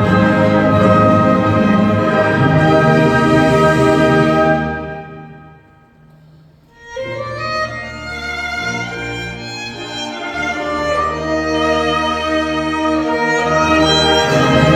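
Church orchestra with a solo violin playing a slow hymn. The music dies away to a brief hush about five seconds in, then comes back in about two seconds later and swells again.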